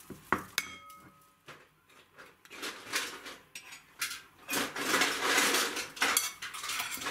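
A few sharp kitchenware clinks, one ringing on briefly, then a dense clatter as cut potato pieces are tipped from a bowl into a steel pot of broth from about four and a half seconds in.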